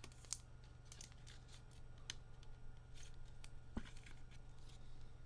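Trading cards being handled: scattered light clicks and brief rustles as cards and packaging are slid and flipped, over a steady low hum.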